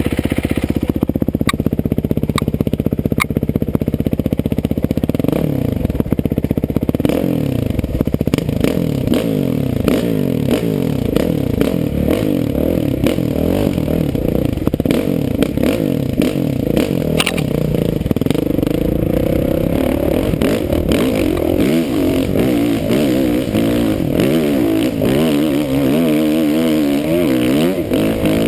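Dirt bike engine running loud, fairly steady for the first few seconds and then revved up and down over and over, the pitch swings getting quicker toward the end.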